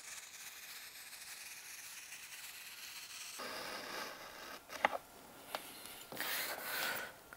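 Ceramic-blade edge trimmer drawn slowly along thin stick-on edging, faintly scraping as it shaves a curling strip off the corner. Two sharp clicks come about five seconds in.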